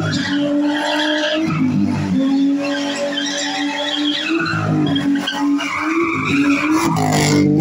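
BMW E36 with a Toyota 1UZ V8 swap drifting: the engine held high in the revs, dipping briefly and climbing again a few times with the throttle, over the squeal of the sliding rear tyres.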